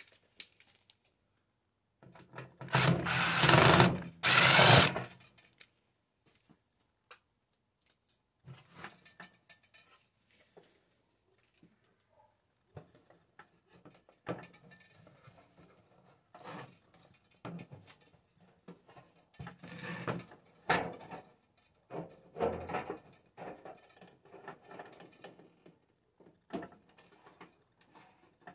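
A power tool runs in two short loud bursts, then scattered knocks, clicks and rattles of tools and parts being handled during the taking apart of a microwave oven.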